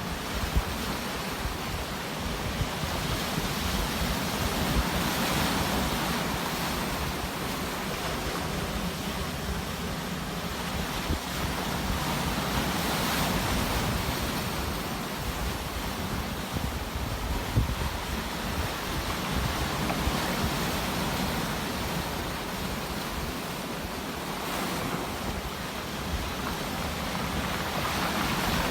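Sea waves surging and washing in, a steady surf noise that swells every seven or eight seconds, with a low rumble beneath.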